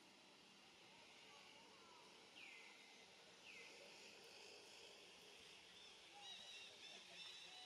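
Quiet outdoor ambience with faint bird calls: two high falling whistles about a second apart, then a run of quick, short chirps near the end.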